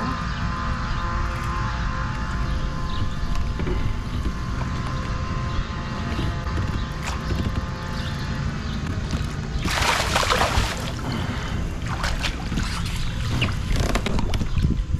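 Steady low rumble of wind and water around a fishing kayak. About ten seconds in there is a brief loud rush of noise, followed by a few sharp knocks near the end.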